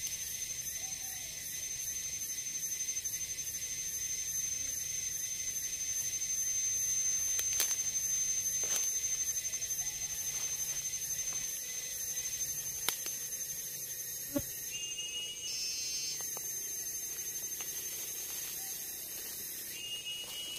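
Forest insects droning: a steady high-pitched whine with a faster pulsing trill above it, about two pulses a second. A few sharp snaps or cracks come through in the middle.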